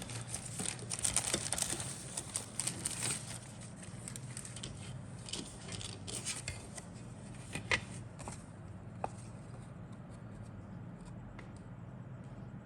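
Crinkling and clicking of plastic packaging being handled, busiest in the first few seconds and dying down to a few single clicks after about eight seconds, over a steady low hum.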